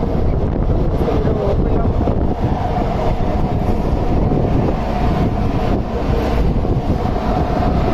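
Hydraulic power pack running: a steady, loud machinery drone with a constant mid-pitched whine.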